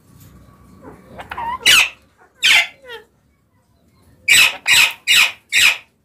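Alexandrine parakeets squawking in short, loud calls: a few scattered ones, then four in quick succession about four seconds in.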